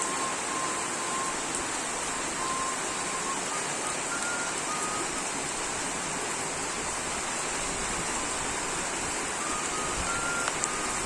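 Steady rain falling in a tropical forest, an even hiss that does not let up, with a few faint short whistled notes now and then.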